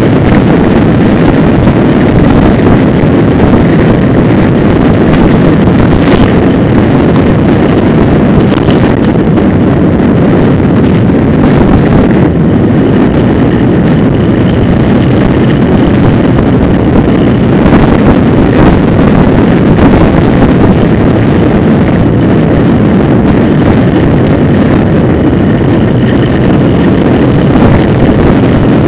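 Loud, steady wind buffeting on the microphone of a camera riding along a street, mixed with road rumble.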